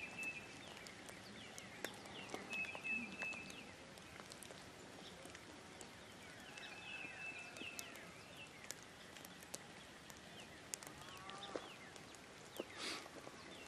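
Faint outdoor birdsong: quick chirps and three level whistled notes about a second each, with scattered faint ticks.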